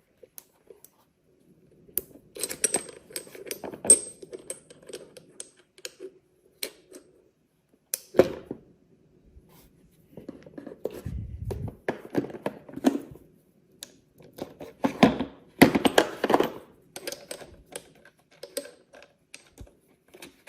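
Irregular metal clicks, clinks and knocks of steel crimping dies being pulled from and pushed into the jaws of a hydraulic copper tube crimping tool, with a few louder knocks in the second half.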